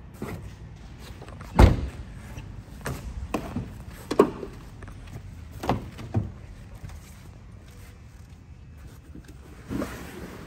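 A sedan's trunk lid shut with one sharp thump about a second and a half in, the loudest sound here, followed by a scatter of lighter knocks and clicks at irregular intervals.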